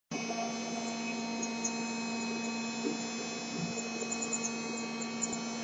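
MPCNC spindle motor running with a steady hum while the bit mills a small block.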